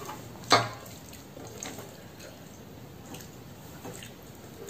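Fingers mixing and squeezing rice with dal and curry on a steel plate: quiet wet squishing with a few small clicks, and one sharp click about half a second in.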